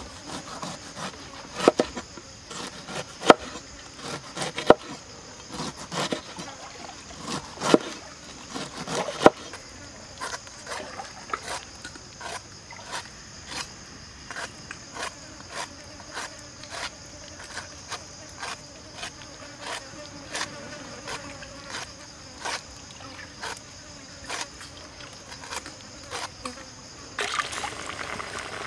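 A large knife chopping a pineapple on a wooden board: sharp knocks a second or two apart for the first ten seconds, then lighter, quicker cuts as the skin is pared away in the hand, over a steady high insect drone. Near the end it gives way to fish sizzling in hot oil in a wok.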